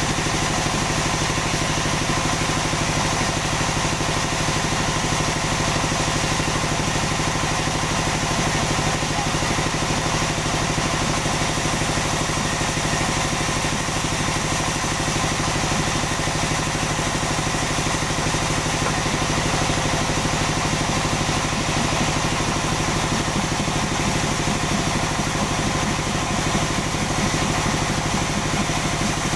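Sawmill machinery running steadily, an engine-driven drone that holds an even level and pitch throughout.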